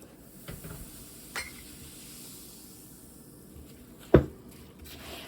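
Kitchenware being handled while the detergent is mixed: a few light knocks, then one sharp clink of a measuring cup or utensil against the bowl about four seconds in.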